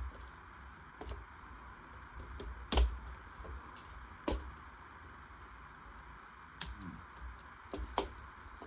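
Plastic LEGO Technic pieces clicking as they are handled and pressed together: scattered sharp clicks, the loudest about three seconds in.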